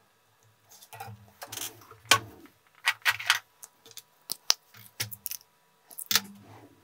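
Irregular clicks and light knocks of tools and small objects being handled on a workbench, in several quick clusters starting about a second in.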